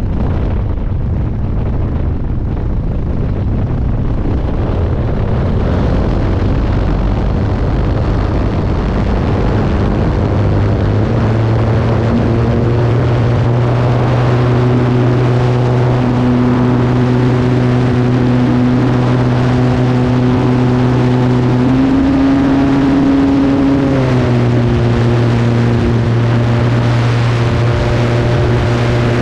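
Senior Telemaster RC plane's engine and propeller at takeoff power, heard from a camera on the wing. The first ten seconds are a rough rumble during the run across the grass. It then settles into a steady engine tone, which rises a little and then drops slightly about five seconds before the end as the plane climbs out.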